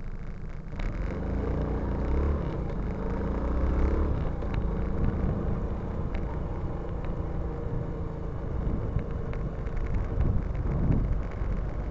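Motorcycle engine pulling away from a stop, the revs rising as it accelerates, then running steadily with wind and road noise.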